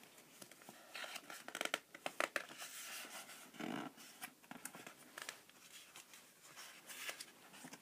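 Paper rustling and crinkling as a hand handles and turns the page of a large picture book, in a string of short, irregular scrapes with a softer thud about halfway through.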